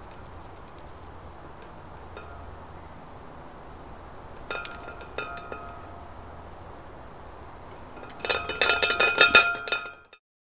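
Hanging metal tray bird feeder clinking and rattling on its pole hook as a squirrel and a chickadee move about in it. A few sharp clinks come about halfway, then a dense run of ringing clinks near the end that cuts off suddenly.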